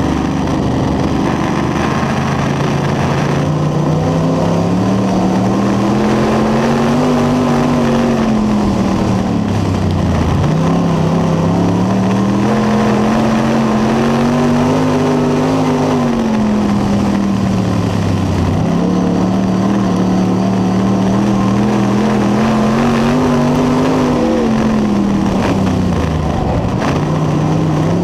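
Late model race car's V8 engine, heard inside the cockpit at racing speed. The pitch climbs as the car accelerates down each straight and drops as it slows for the corners, three times about eight seconds apart, once per lap.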